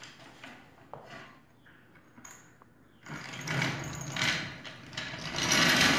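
A few faint clicks, then from about three seconds in louder scraping and clattering of metal workshop equipment being moved about, swelling twice.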